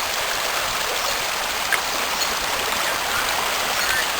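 Floodwater rushing, a steady, even sound of fast-flowing water.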